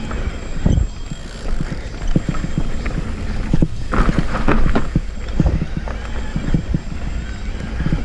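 Rapid, irregular knocks and rattles from moving fast over a rough, rocky mountain trail, with wind noise on the microphone. The knocking gets denser about four seconds in.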